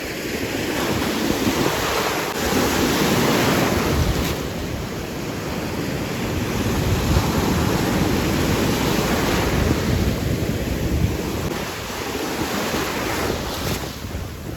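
Surf washing in, swelling and easing in slow surges, with wind buffeting the microphone.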